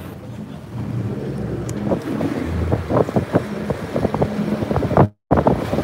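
Glass-bottom boat under way: a steady low engine hum with wind buffeting the microphone in uneven gusts. The sound cuts out completely for a moment about five seconds in.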